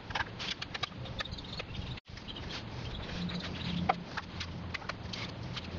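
Scattered light metallic clicks and taps from a screwdriver and small screws as the screws holding a voltage regulator onto an alternator are taken out and the parts are handled. The sound breaks off for an instant about two seconds in.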